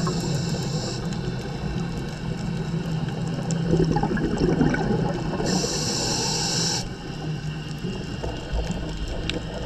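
Scuba diver breathing through a regulator, heard underwater: a short high hiss of an inhale near the start and again about five and a half seconds in, with a rumble of exhaled bubbles between them, over a steady low hum.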